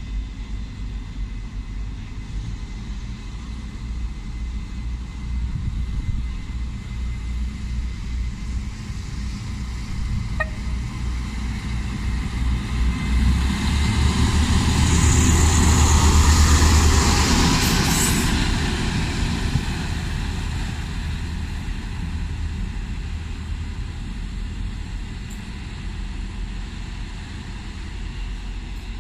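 HŽPP class 7122 diesel railcar running in along the platform, its engine and wheels a low rumble that grows louder as it nears and passes about halfway through, then fades. A brief high squeal sounds as it passes.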